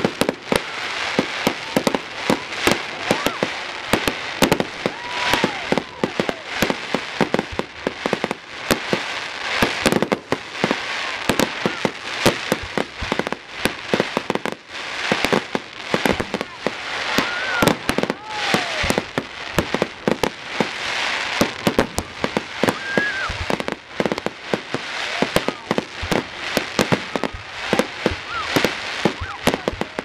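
Fireworks display: a continuous barrage of bangs and crackling, several reports every second, from aerial shells and ground fountains.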